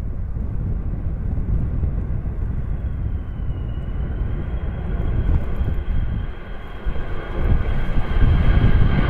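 Jet airliner engines running as the plane lands in a crosswind, under heavy wind rumble on the microphone. A thin high engine whine dips slightly about three seconds in and then holds steady, and the sound grows louder near the end.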